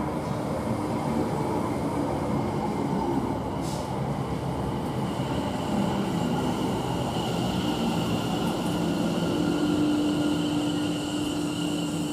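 Greater Anglia Class 720 electric multiple unit running into the platform and slowing to a stop, a steady rumble of wheels and running gear with a whine that comes in about halfway through.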